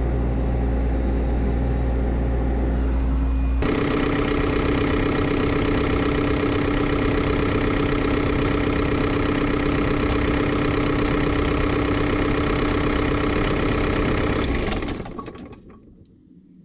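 Cat 305.5E2 CR mini excavator's diesel engine running steadily. Its sound changes abruptly about four seconds in. Near the end it is shut off and spins down over about a second and a half.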